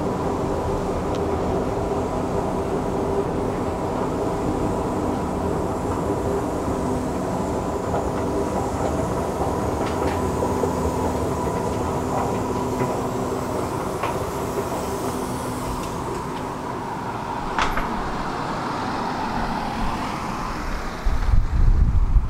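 Escalator running: a steady mechanical hum with a few faint clicks. Near the end, wind rumbles on the microphone.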